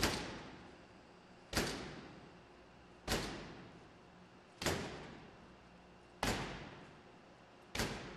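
Six kicks against a shattered glass door pane held together by 3M Safety & Security Film S140, about one every second and a half, each a sharp thud that dies away over about a second; the filmed glass stays in its frame rather than falling out.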